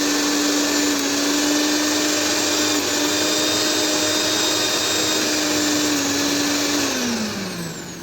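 Bajaj mixer grinder motor running at speed on direct 220 V mains, a loud steady whine; near the end it slows down, its pitch falling away. It runs normally, its fault, a wire that had come loose, now rejoined.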